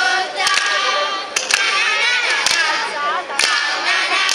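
Children's choir singing together, with sharp hand claps on the beat about once a second.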